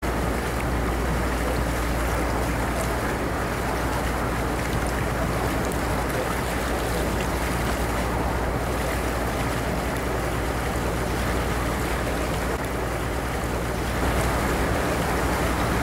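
Motorboat under way: steady low engine drone under the rush of water along the hull, a little louder near the end.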